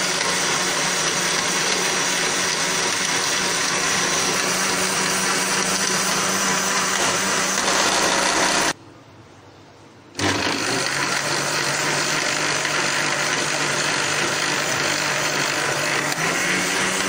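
Countertop jar blender motor running steadily as it blends milk, sugar and strawberries into a milkshake. It cuts out for about a second and a half just before halfway, then starts again lower in pitch and steps back up near the end.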